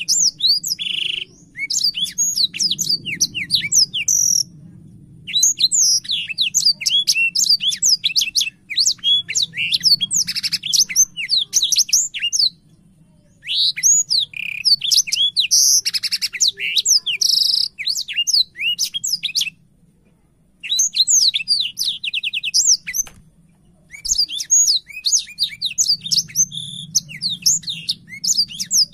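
A blackshot songbird singing vigorously: long bursts of rapid, varied whistled and sweeping notes with some quick trills, broken by a few short pauses of about a second. A faint low hum runs underneath.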